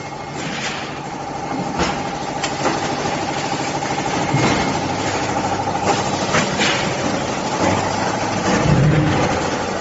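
Automatic concrete-brick stacking and baling machine running: a steady mechanical hum with a held whine, broken by irregular sharp clanks and knocks as the machine works.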